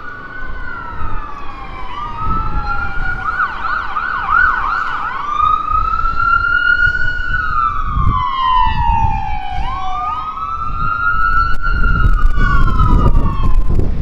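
Ambulance siren sounding a slow rising and falling wail, switching to a fast yelp for about two seconds, then back to the wail. Engine and road noise grow louder near the end as the ambulance comes close.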